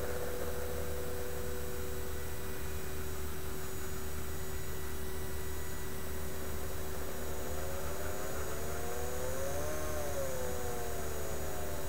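Small brushed DC motor driven by a homemade BJT H-bridge, with a steady electrical hum and tone. In the second half a whine rises in pitch and then falls again as the motor speeds up and slows down.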